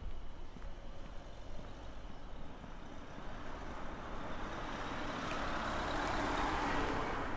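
A road vehicle passing on the street, its tyre and engine noise growing steadily louder over several seconds and at its loudest near the end.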